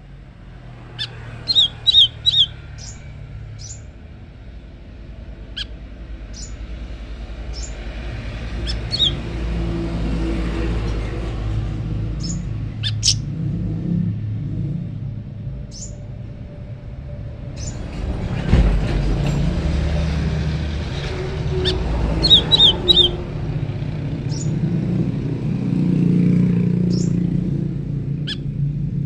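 Small songbirds giving short, sharp, high-pitched chirps, scattered singly and in two quick runs of three or four notes, answering each other. Under them is a low, steady rumble like distant traffic or wind that swells and fades.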